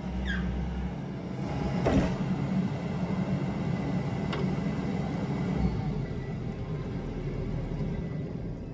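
Yanmar mini excavator's diesel engine running steadily, with two sharp knocks about two and four seconds in; the engine sound eases off over the last few seconds.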